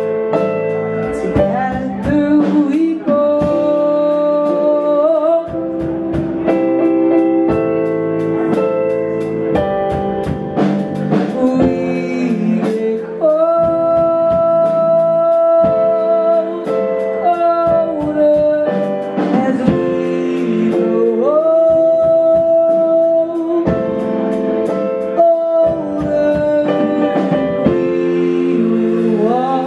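Live band music: a male singer holds long notes and slides between pitches, over electric keyboard, electric bass and drum kit.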